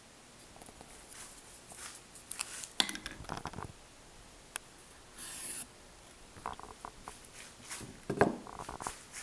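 Wooden boat parts being handled at close range on a workbench: scattered light knocks, rubs and scrapes of wood, with a short hissing scrape about halfway through and a sharper knock near the end.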